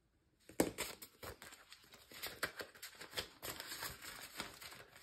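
Canadian polymer banknotes and paper cash envelopes being handled, giving irregular crinkling and rustling that starts about half a second in.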